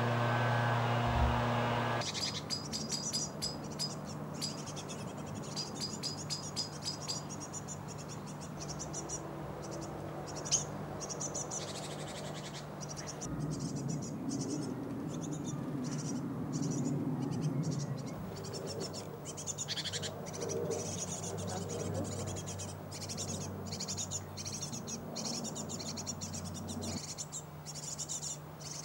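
A motor vehicle's engine runs for about the first two seconds and cuts off abruptly. Then small songbirds give short high chirps and rapid ticking calls, a fast run of them at first, over a steady low hum.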